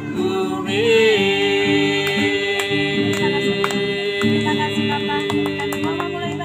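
Women singing an Indonesian worship chorus, holding one long steady note on the closing word "kukagumi", over sustained instrumental chords.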